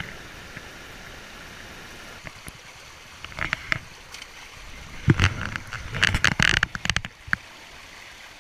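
Creek water running over rocks in shallow riffles, a steady rushing hiss. Over it come close knocks and scrapes: a few about three seconds in, then a louder cluster from about five to seven seconds in.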